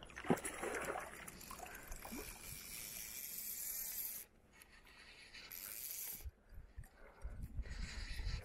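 Fly reel clicking as line is wound in while playing a hooked fish, with low wind rumble on the microphone toward the end.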